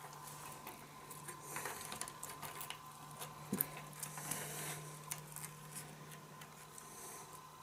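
Faint rustling and small clicks of bundled electrical wires being twisted together by hand inside a wire nut, with one sharper click about three and a half seconds in. A steady faint hum runs underneath.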